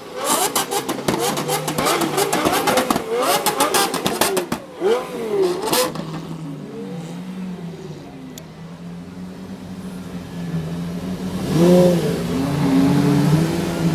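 Lamborghini supercars with loud custom exhausts revving, throttle blips rising and falling in pitch with rapid crackling and popping from the exhaust for the first five or six seconds. The engines then settle to a quieter steady running, and the revving picks up again near the end.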